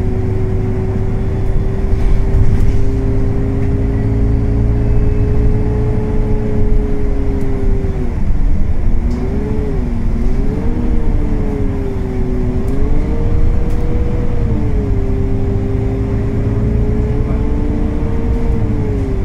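Volvo B9TL bus heard from inside the lower deck while driving: the Volvo D9B engine and its very loud radiator cooling fan give a steady drone with a strong whine. About eight seconds in, the whine dips and wavers in pitch for several seconds, then settles back to a steady note.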